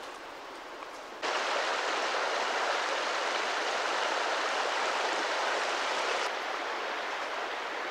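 Shallow rocky mountain stream flowing over stones: a steady rushing-water noise that comes in suddenly about a second in and eases slightly near the end.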